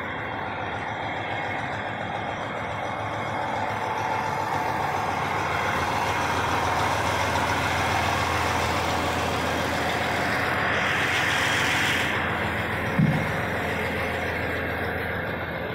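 Diesel semi truck running steadily, growing louder as it is passed up close, with a brief hiss near the middle and a single short thump about 13 seconds in.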